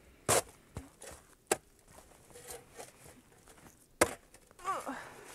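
A spade chopping into snow-covered forest soil: several sharp strikes at uneven intervals, the loudest about four seconds in, followed by a brief falling tone near the end.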